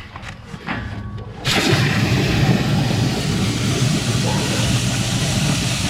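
A high-pressure water blaster comes on suddenly about 1.5 s in: its motor and pump give a steady rumble under a wide hiss of water spraying to loosen a drain blockage.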